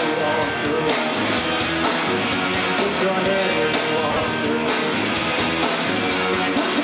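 Rock band playing live, with strummed guitars to the fore in a full band sound.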